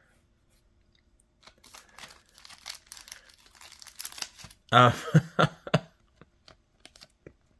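Crinkling and rustling of plastic packaging while trading cards are handled, with a brief vocal sound from the person about five seconds in and a few light clicks near the end.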